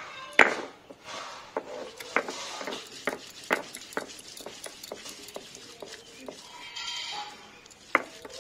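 Stone pestle knocking and rolling on a flat grinding stone (shil-nora), crushing and grinding pieces into paste: irregular sharp stone-on-stone knocks with scraping between them, the loudest about half a second in.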